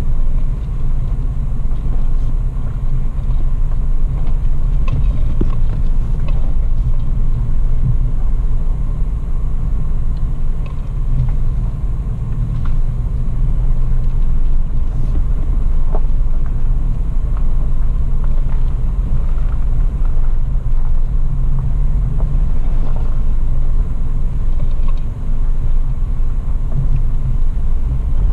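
Toyota FJ Cruiser driving along a dirt forest road, heard from inside the cabin: a steady low rumble of engine and tyres on the dirt, with scattered small clicks and knocks.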